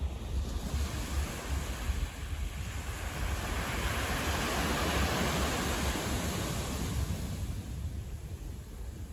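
Steady rushing noise with a deep rumble, swelling louder in the middle and easing off near the end.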